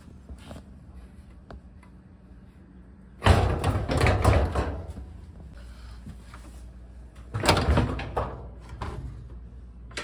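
LG dryer cabinet panels being handled and pulled off during disassembly. There are two loud bouts of clattering and scraping, about three seconds in and again near eight seconds.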